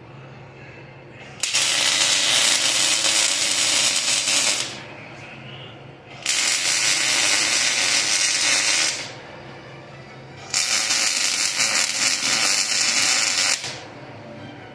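Welding arc crackling in three bursts of about three seconds each, starting and stopping abruptly, with a steady low hum underneath.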